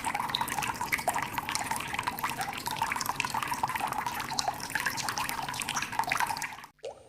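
Water sound effect: a dense, continuous patter of drips and small splashes that cuts off suddenly near the end.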